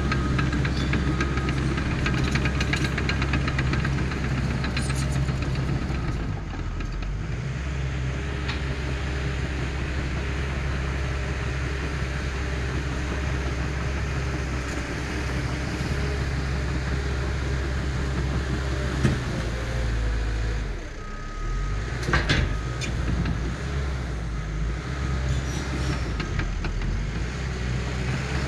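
Diesel engine of a tracked land-clearing machine running steadily under work. A few sharp knocks stand out about two-thirds of the way through.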